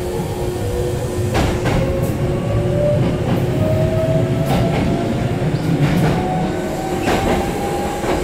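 An electric train accelerating away from a station, heard from inside the car: the traction motors whine and rise steadily in pitch over a low running rumble, with the wheels clicking over rail joints now and then.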